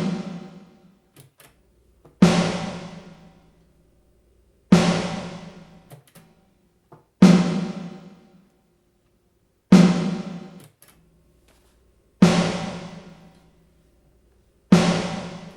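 Ludwig snare drum sample hit about every two and a half seconds, six hits, each followed by a short decaying reverb tail from a Lexicon PCM60 on a room setting.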